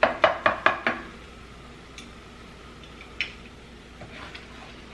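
Wooden spoon knocking against a metal frying pan: five quick knocks in about a second, then a single knock about three seconds in.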